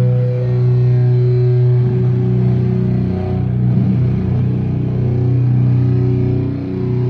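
Drone metal played live: heavily distorted electric guitars and bass through loud amplifiers holding one sustained low chord, with overtones above it shifting about two seconds in.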